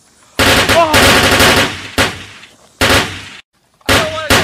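Rapid automatic gunfire in bursts: a long burst starting about half a second in, a single shot, a shorter burst that cuts off abruptly, then rapid firing again near the end.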